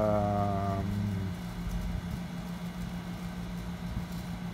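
A drawn-out spoken syllable trails off in the first second, then a steady low mechanical hum, like a fan or other running machinery, carries on.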